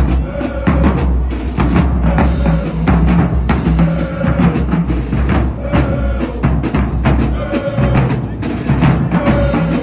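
Marching band drumline playing a steady, repeating cadence on bass drums and snares, with a short pitched figure recurring about every second and a half.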